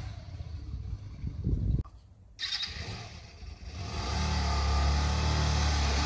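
Hyosung GT 125's 125cc V-twin motorcycle engine running. It fades as the bike pulls away, drops out briefly about two seconds in, then settles into a steady low-rev note from about four seconds in as the bike rolls slowly closer.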